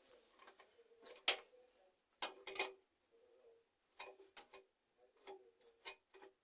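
Sharp clicks and knocks of hand work on a bathroom mixer tap's fittings while it is being tightened, coming in small clusters with one loud knock a little over a second in.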